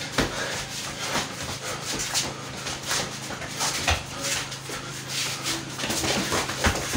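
Close-quarters boxing sparring in a small, echoing room: irregular gloved blows and knocks with feet scuffing on the bare floor, over whimpering cries.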